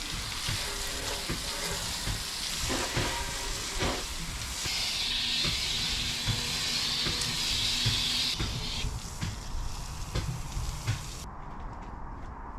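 Water spraying with a steady hiss as a lorry's wheels are washed down for farm biosecurity. The spray is strongest in the middle and dies away over the last few seconds.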